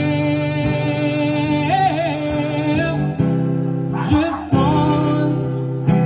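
Live acoustic guitar with a man singing, amplified through a microphone and PA speaker.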